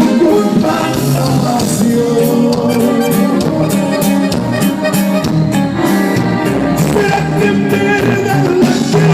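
Regional Mexican corrido band music, the recording of the song playing on through a passage with no sung lyrics, over a steady beat.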